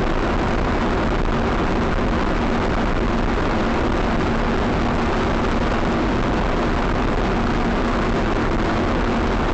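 Steady road and engine noise of a car driving at highway speed, picked up inside the cabin by a dashcam, with a faint low hum and no change in level.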